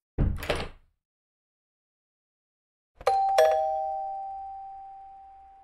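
Doorbell chime: two ringing notes, a higher then a lower "ding-dong", that fade away slowly over a couple of seconds, heard about three seconds in. A short burst of noise comes just after the start.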